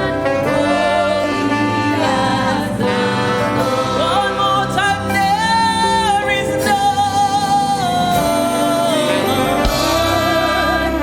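Gospel praise-and-worship singing over instrumental backing, with sung notes wavering in vibrato and one long note held in the middle.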